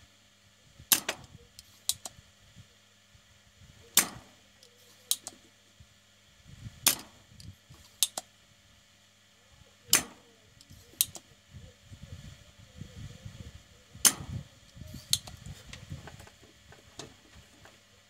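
Spring-loaded desoldering pump (solder sucker) firing as it sucks molten solder off the board's joints: five sharp snaps about three seconds apart, each followed about a second later by a lighter click.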